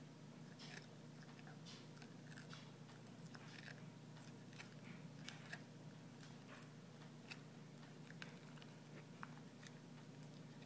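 Dog chewing a rawhide chew: faint, irregular crunches and clicks of teeth on the hide, several a second at times.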